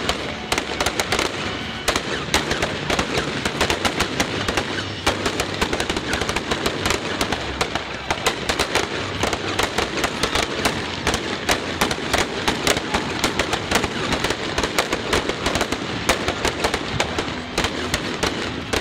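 Fireworks display: a continuous barrage of aerial shells bursting, many sharp bangs and crackles a second, with no let-up.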